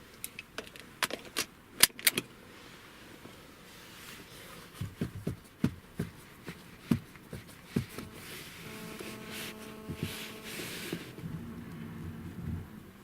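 Seat belt metal hardware clicking and rattling in a quick run of sharp clicks, then sparser knocks. From about halfway through, a steady low hum and hiss run under it.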